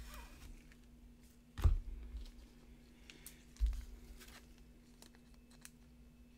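Trading cards being handled on a tabletop by a gloved hand: two soft thumps, the first about one and a half seconds in and the louder-sounding second a couple of seconds later, with faint clicks and light rustling between.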